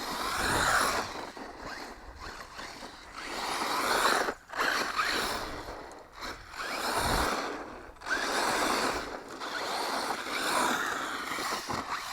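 JLB Racing Cheetah electric RC truck driving through grass, its motor and tyres swelling and fading in repeated surges every few seconds as the throttle comes on and off.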